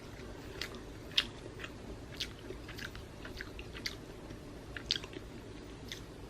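Someone chewing a bite of garlic chicken with their mouth close to the microphone, with sharp crunches at irregular intervals.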